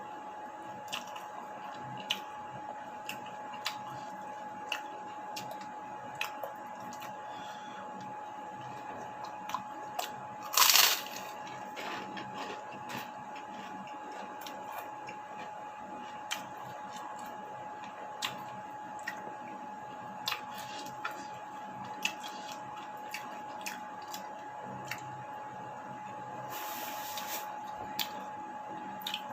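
Close-up eating sounds of a person chewing a meal of chicken, tempe and tofu: wet squishy chewing with small sharp clicks about once a second, over a faint steady hum. One louder noisy burst comes about ten seconds in.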